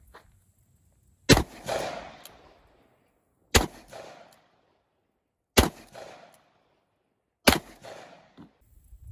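Four .357 Magnum shots fired from a Colt Lawman revolver, about two seconds apart, each trailed by a short echo.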